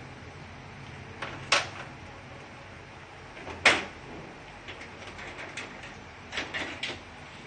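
Plastic covers of an Epson LQ-2190 dot-matrix printer being lifted off and handled: a few sharp plastic clacks, the loudest about three and a half seconds in, with a run of lighter knocks near the end.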